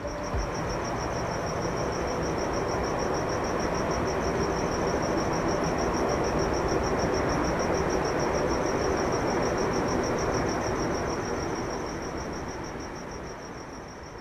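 Crickets chirping in a steady, high, pulsing trill over a broad hiss of night ambience. The hiss fades over the last couple of seconds.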